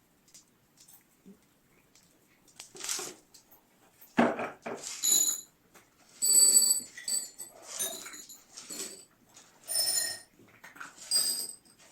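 Cats meowing in a series of short calls, starting about three seconds in and repeating every second or so.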